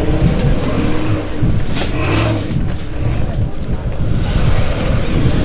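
Off-road truck engine running loudly.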